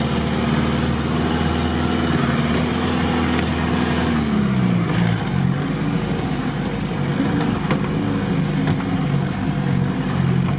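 Off-road vehicle's engine running steadily, then about four seconds in its speed drops and stays uneven and wavering.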